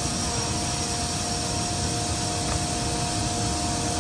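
Ingersoll Rand air compressors running steadily as they recharge an air-powered ride's storage tanks: an even mechanical rush with a few steady whining tones on top.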